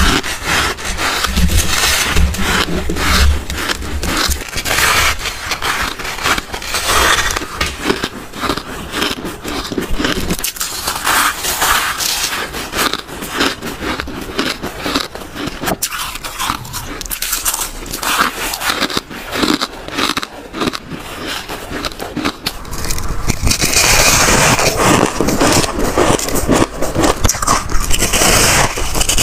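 Close-up bites and chewing of soft, powdery frost ice: a dense run of crisp, irregular crunches. Toward the end the crunching turns louder and denser.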